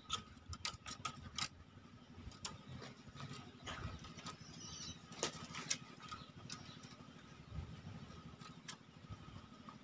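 Scattered sharp clicks and scuffles as a male green junglefowl mounts and treads a hen on dirt ground, over a faint, steady low hum.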